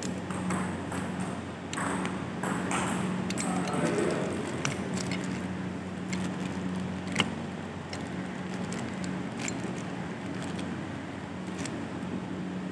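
Table tennis ball clicking off bats and the table in an irregular series of sharp ticks during a rally, with one loud click about seven seconds in, over a steady low hum.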